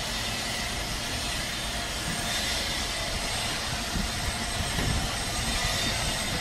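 Truck-mounted crane's diesel engine running steadily, with a few low thumps about four to five seconds in.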